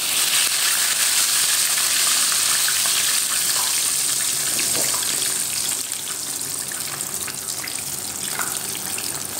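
Chicken pieces deep-frying in a pan of hot oil: a steady, loud sizzle that eases a little about six seconds in, with a few faint clicks over it.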